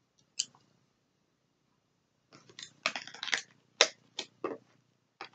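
A balisong (butterfly knife) being handled, its metal handles and blade clicking and clacking: one click near the start, a quick run of clacks around the middle, then a few separate clacks near the end.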